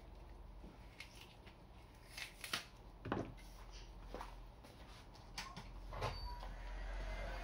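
A few sharp clicks and knocks of tools and parts being handled on a workbench, the loudest a couple of seconds in and again about six seconds in. Near the end a heat gun's fan starts blowing steadily.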